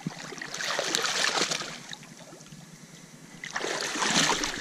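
Shallow creek water splashing in two bursts, each about a second long.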